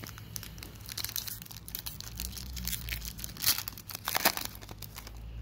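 Foil wrapper of an Upper Deck hockey card pack crinkling as it is handled and torn open, a run of fine crackles with two louder crackles near the end.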